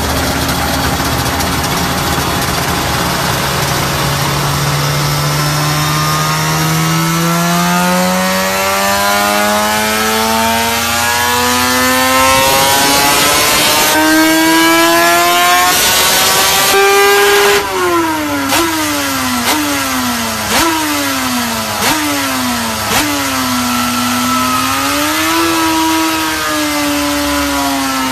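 Suter MMX 500 V4 two-stroke race engine on a roller dyno, pulling from low revs in one long steady climb to a high, raw-edged scream. It then drops back in a sawtooth of about six steps, the revs sagging and jumping up again roughly once a second as it is shifted down, before settling to a lower steady note near the end.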